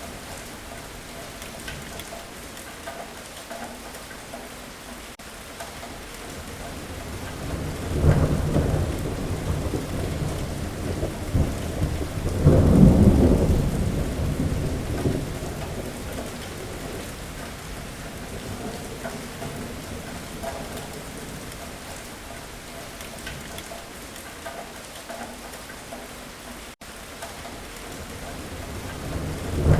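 Steady rain falling, with rolling thunder: one rumble about a quarter of the way in, a louder one close after it that swells and fades over a few seconds, and another starting near the end.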